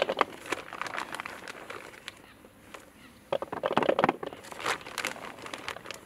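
A clear plastic bag of boilies crinkling and rustling as a hand works handfuls of the baits out of it. It goes quieter for nearly two seconds in the middle, then crinkles again.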